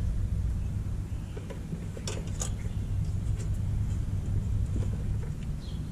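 Steady low machine rumble that eases near the end, with two light clicks a little over two seconds in.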